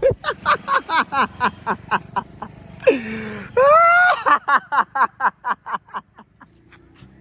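A person laughing hard in quick bursts, about four or five a second, broken by a long high squeal a little over three and a half seconds in. The laughter dies away near the end.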